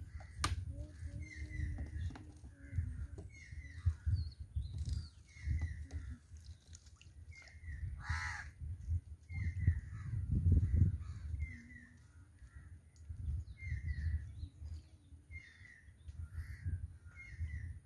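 Crows cawing over and over, short calls about once a second, with one louder caw about eight seconds in. A low rumble runs underneath.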